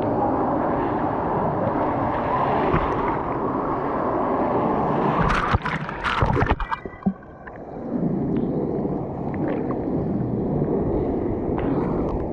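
Fast-moving wave-river water churning and sloshing right against the microphone. About five and a half seconds in, splashes crackle over it, then the sound drops and goes dull for a second or so before the rushing water comes back.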